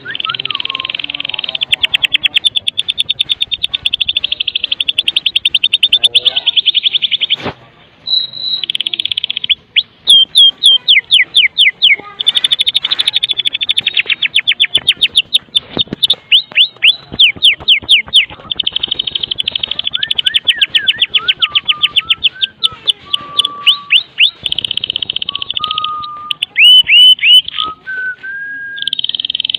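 White-rumped shama giving its rapid rattling 'kretekan' calls: long runs of fast, sharp, evenly repeated notes, broken by series of downward-sweeping notes and, near the end, a few short whistled notes.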